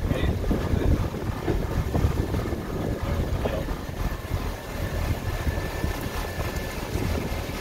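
A boat engine running steadily under heavy wind rumble on the microphone.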